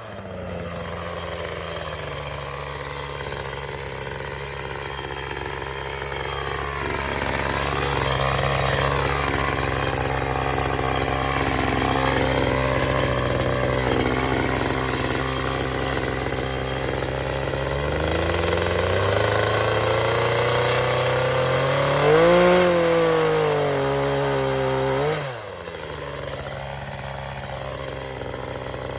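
Gas chainsaw running, mostly at a low steady speed. Its revs climb from about two-thirds of the way in, peak, then drop back sharply a few seconds before the end.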